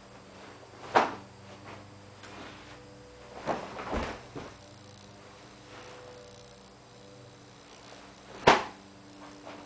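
Solo kenpo karate technique in movement: a sharp snap of a strike about a second in, a cluster of thuds around three and a half to four seconds as a kick is thrown and the bare foot comes down, and another sharp snap about eight and a half seconds in.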